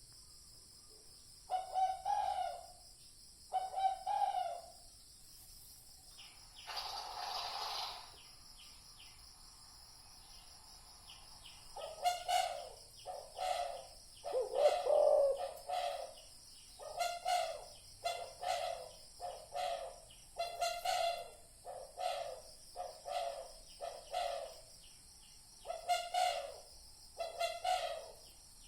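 Spotted dove cooing in repeated short phrases, the call used as a decoy lure: a couple of calls near the start, then a dense run of coos from about twelve seconds on. A short noisy rush sounds about seven seconds in, and a steady faint high-pitched tone runs underneath.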